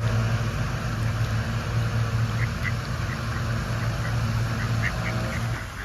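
Mallard ducks quacking, with short calls scattered through the second half. A steady low hum runs beneath them and drops away just before the end.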